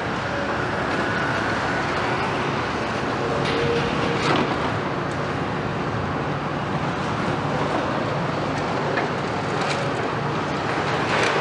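Diesel engines of several tracked demolition excavators running steadily, with a few short sharp knocks from the work.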